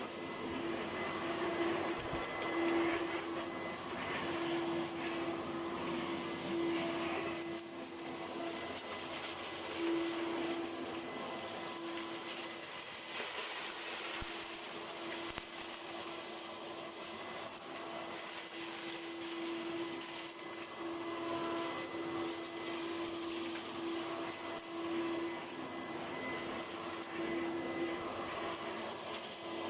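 Electrolux Power System Z1740 upright vacuum cleaner running continuously: a steady motor rush with a low hum that swells and fades.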